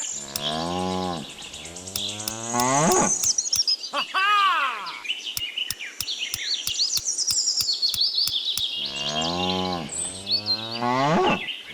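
Cattle mooing about five times in long calls that rise and fall in pitch, with birds chirping high above. A run of evenly spaced clicks, about three a second, comes in the middle.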